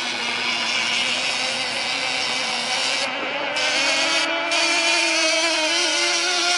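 Two radio-controlled model outboard racing boats running on the water, their small engines making a high, steady buzzing whine that wavers in pitch. Pitch and level rise a little about halfway through as the boats speed up.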